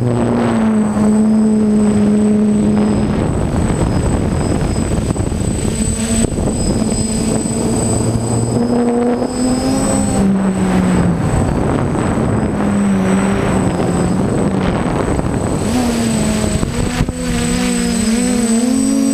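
DJI F550 hexacopter's six electric motors and propellers whining in fast flight, their pitch sliding up and down as the throttle changes, over a steady rush of wind across the onboard camera's microphone.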